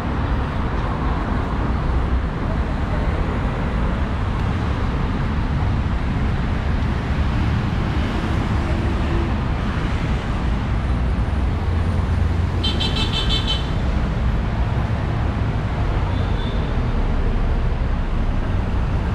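Street traffic: a steady rumble of passing road vehicles, with a brief high-pitched toot lasting about a second, roughly two-thirds of the way through.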